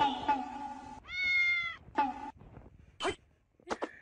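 Background music stops about a second in, then a cat gives one high meow lasting under a second, followed by a few short, quieter sounds.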